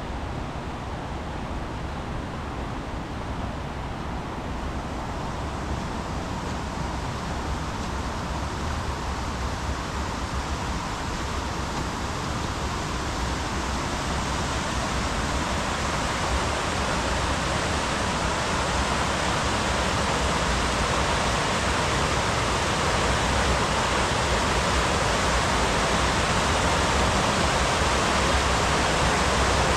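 Fast-flowing river in full spate, a steady rush of white water that grows louder throughout as it comes closer.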